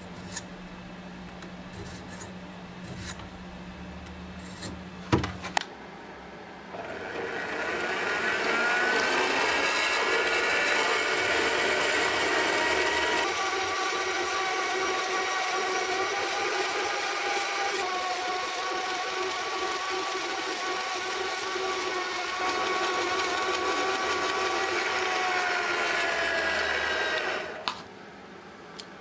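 A few taps and clicks, then about seven seconds in a small horizontal metal-cutting bandsaw starts cutting through a solid brass block. It runs steadily with a ringing sound of several steady pitches over the hiss of the cut, and stops suddenly near the end as the cut finishes.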